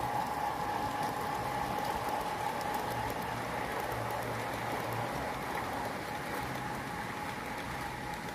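Garden-scale model train running along the track, a steady rushing hiss of wheels on rail with a faint steady whine, slowly fading as the train moves away.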